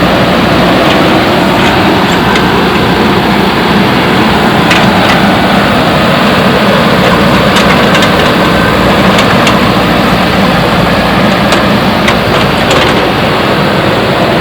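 JCB backhoe loader's diesel engine running steadily under load, with a few short sharp clicks and knocks scattered through the second half.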